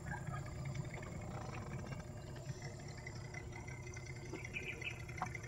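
Faint, steady low engine hum.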